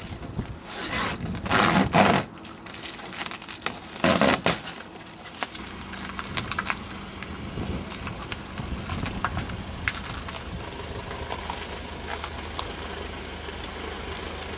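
Loud scraping, rustling handling noise for the first few seconds, then a vehicle engine running steadily at low revs as the tow vehicle backs the boat trailer down the launch ramp.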